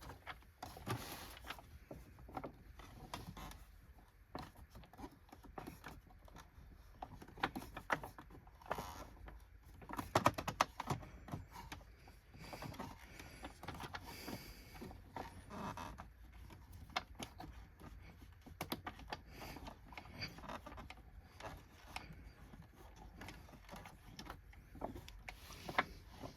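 Scattered soft clicks, knocks and rattles of hands handling the plastic body of a Hoover WindTunnel upright vacuum while a new flat belt is worked onto its motor spindle.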